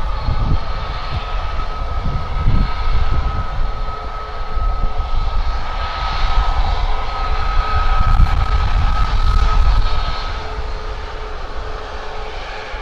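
Boeing 737 MAX 8's CFM LEAP-1B turbofan engines running at low taxi thrust as the airliner turns on the runway: a steady high whine over a gusty low rumble. About ten seconds in the whine fades, leaving a lower steady tone.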